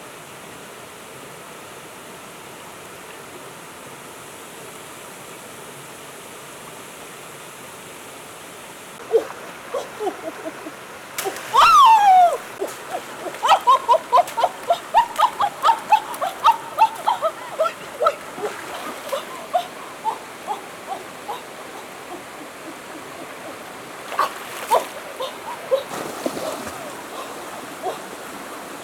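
Steady rushing of river water, then splashing and sloshing of water from about nine seconds in, busiest between about twelve and eighteen seconds.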